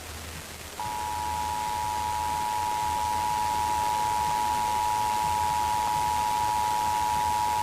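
Emergency Alert System two-tone attention signal, a steady dual tone that starts about a second in and holds, announcing an incoming weather alert. It is heard over a weather radio receiver with a constant static hiss and a low hum.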